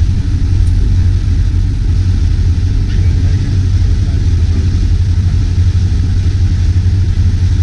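Boat running under way: a steady, loud, low rumble of the outboard motor mixed with water and wind noise.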